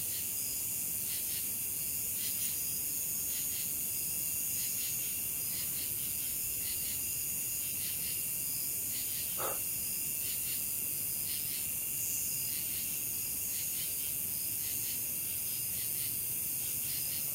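A night insect chorus: a steady high buzzing with a regular pulsing call about twice a second over it. One brief short sound comes about halfway through.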